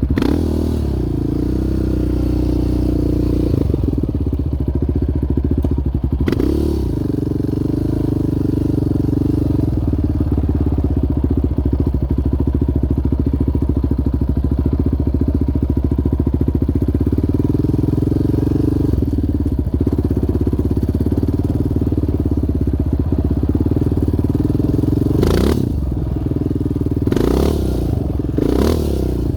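Yamaha Raptor 700R quad's single-cylinder four-stroke engine running at a steady, moderate speed while riding, with a few short knocks or clatters, several of them near the end.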